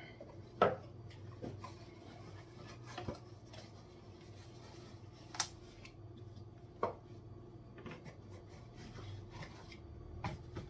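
Scattered clinks and knocks of kitchen utensils against dishes, about seven separate strikes with the sharpest about half a second in, over a steady low hum.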